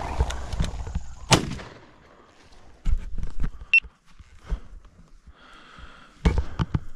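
A single shotgun shot about a second in, after a loud rushing noise at the start. Scattered rustling and footfalls through dry grass follow, with another cluster of knocks near the end.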